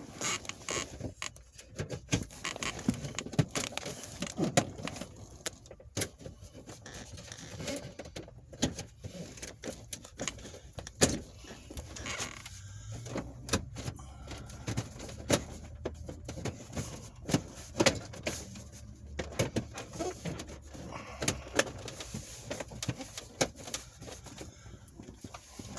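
Plastic dash panel being handled and pressed into place: irregular plastic clicks, knocks and rubbing as its hooks and snap clips are worked into the dashboard.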